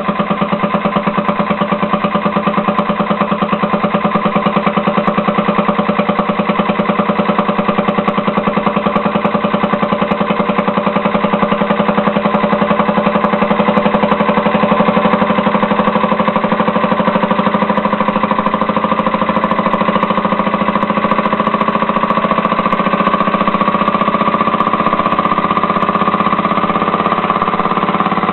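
Leaf blower engine converted to a compressed-air motor, running steadily and fast, each stroke of its timed air valve giving a rapid, even puff.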